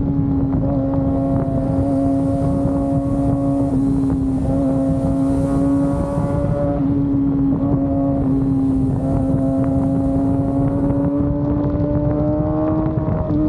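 Kawasaki ZX-25R 250 cc inline-four engine cruising under way at steady high revs, a high, even engine note that climbs slightly near the end, with wind and road rush underneath.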